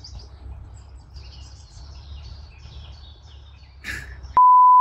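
Faint birds chirping over a low outdoor rumble, then near the end a loud, steady single-pitch beep cuts in abruptly and every other sound drops out: an edited-in censor bleep.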